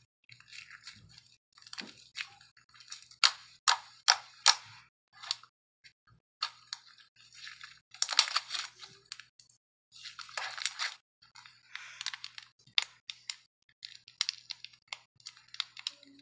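Slime being squeezed, pressed and poked by hand, giving irregular bursts of crackling and sharp popping clicks, with a quick run of loud pops about three to four seconds in.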